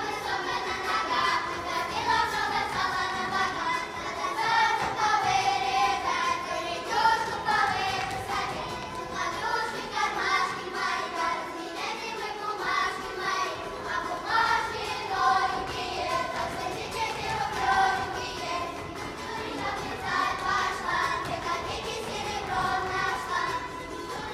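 Children's folk ensemble singing a Russian folk song together in chorus.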